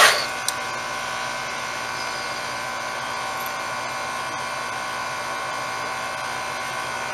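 Steady hum of a running central air-conditioner condenser unit (fan and compressor), with one brief click about half a second in.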